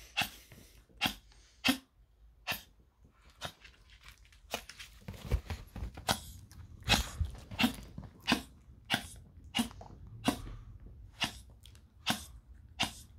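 Small white toy dog giving short, sharp barks over and over, about one to two a second, begging for a treat.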